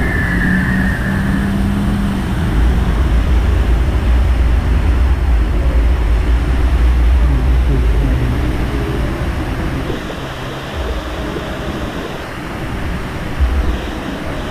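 Steady rush of an artificial waterfall pouring from a rock ceiling into a shallow pool, with a heavy low rumble that eases about ten seconds in.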